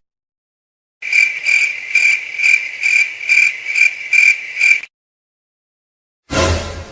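A sound-effect clip of a high chirping animal call, repeated about twice a second for about four seconds, then cutting off. Near the end a different, louder sound effect begins.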